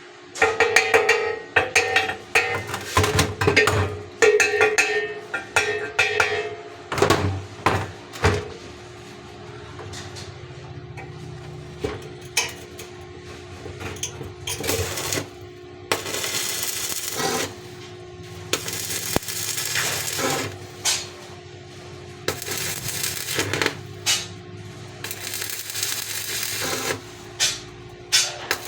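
Metal parts clinking and clattering with short ringing tones, then several harsh hissing bursts of a second or two each, over a steady hum.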